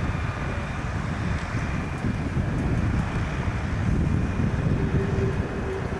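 Wind buffeting the camera microphone: a steady, rumbling, gusting noise. A faint steady hum comes in near the end.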